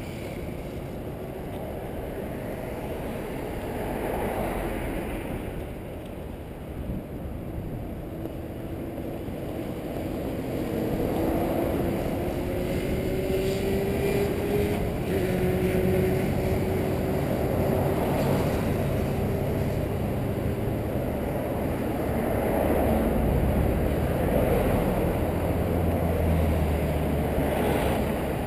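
Wind rumbling over a bike-mounted action camera's microphone while cycling, with road traffic alongside. A faint rising whine comes in around the middle.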